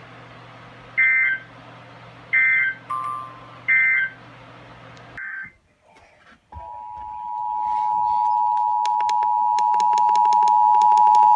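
Emergency Alert System broadcast on weather radio: three short bursts of SAME digital data tones, then a brief gap. About six and a half seconds in, a steady, loud alert tone near 1 kHz begins: the weather radio warning alarm tone that precedes a tornado warning.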